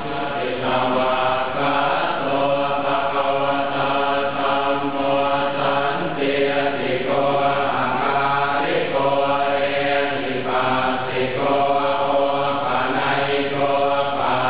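Thai Buddhist monks chanting together in unison, a steady, near-monotone recitation on one pitch, with short breaks for breath every second or two.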